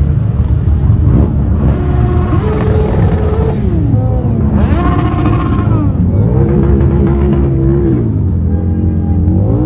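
A mass of motorcycles riding past with a dense, steady engine rumble. Riders blip and rev their engines several times, each rev rising in pitch, holding briefly and falling away.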